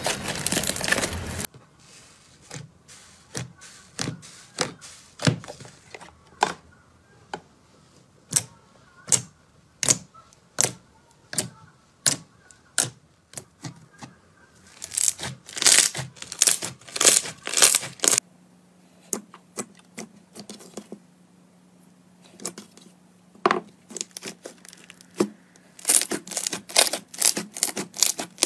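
Slime being squeezed, poked and pressed by hand: a long run of separate sharp pops, then bursts of dense crackling and tearing sounds.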